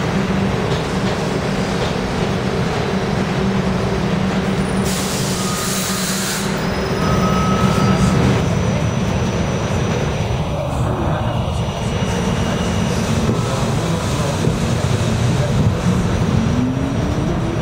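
New York City subway train running through a station: a steady heavy rumble, a burst of air hiss about five seconds in, faint wheel squeals, and a rising electric motor whine near the end as the train picks up speed.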